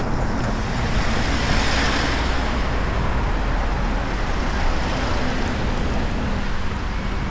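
Steady road traffic noise, swelling as a vehicle passes about two seconds in.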